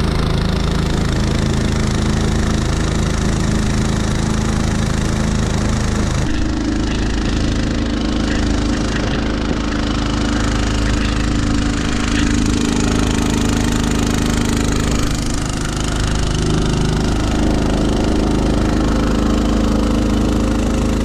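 Small single-cylinder four-stroke engine on a longtail mud motor running steadily at speed, pushing a jon boat under load. About six seconds in the engine note changes abruptly to a slightly different steady pitch and then holds.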